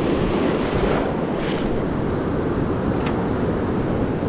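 Ocean surf washing and breaking around the wader, with wind rumbling on the microphone.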